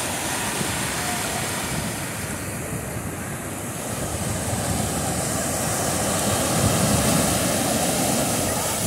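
Ocean surf breaking and washing up onto a sandy beach, a steady rushing that swells louder about two-thirds of the way through as a wave foams in close by, with wind rumbling on the microphone.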